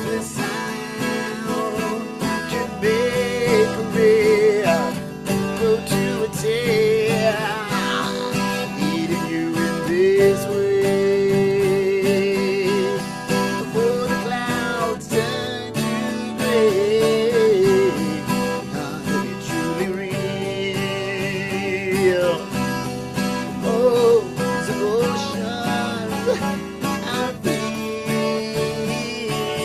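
Acoustic 12-string guitar strummed, from the upper neck of a double-neck acoustic, with a man singing over it in long held notes with vibrato.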